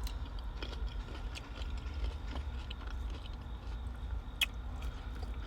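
A person chewing a mouthful of cucumber salad, with scattered small clicks and crunches and one sharper click about four and a half seconds in, over a steady low rumble.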